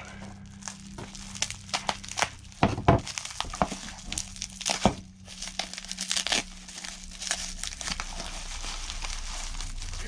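Bubble wrap being slit with a knife and pulled open by hand: irregular crinkling and sharp crackles, busiest through the first six or seven seconds and thinning out near the end.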